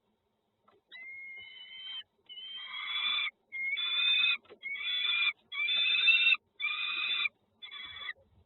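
Nestling birds giving a run of about seven begging calls, each under a second long and pitched with several overtones. The calls start about a second in and grow louder through the middle.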